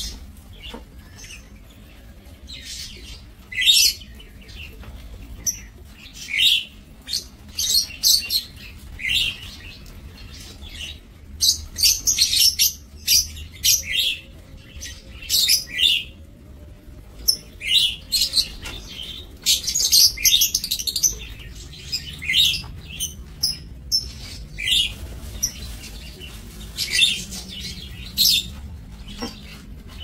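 A flock of lovebirds chirping: many short, high-pitched calls overlapping, coming in quick clusters every second or two, busiest in bouts about halfway through and again a few seconds later.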